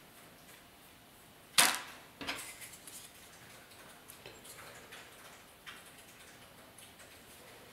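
A sharp knock of a hard object set down or picked up on a hard work surface about a second and a half in, followed by a second, lighter knock, then faint small clicks and rustles as small tools are handled.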